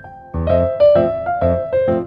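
Background music: a piano or electric-piano melody, notes struck about twice a second after a short pause at the start.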